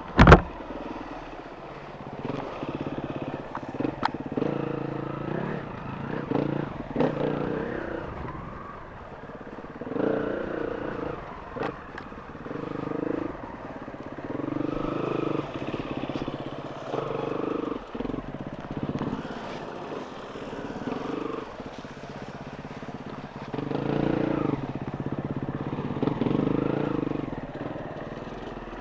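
Enduro motorcycle engine revving up and down over and over as the throttle is opened and closed, with scattered knocks and clatter. A sharp bang comes right at the start.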